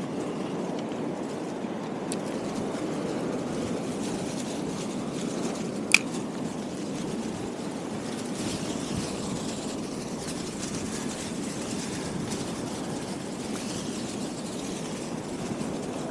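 Steady outdoor rushing noise at the shore, with one sharp click about six seconds in.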